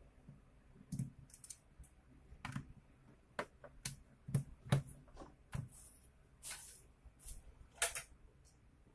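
Irregular light clicks and knocks of hard plastic and metal parts of a Makita 6205D cordless drill being handled during disassembly, with a couple of short scrapes.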